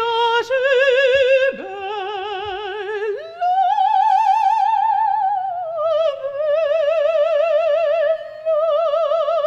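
An operatic soprano singing a warm-up unaccompanied, with wide vibrato. A few short notes come first, then a long high note held for about three seconds, which slides down about two-thirds of the way through onto a lower held note.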